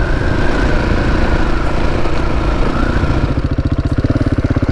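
KTM 690 Enduro's single-cylinder engine running under a rush of wind noise on the move; about three seconds in the wind falls away and the engine settles into an even, pulsing thump at low revs as the bike slows.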